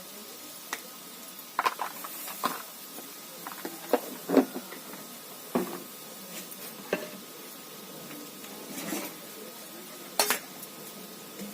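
Metal utensils clinking and knocking against a pot or dishes: a dozen or so scattered, irregular strikes, as in stirring or handling cookware.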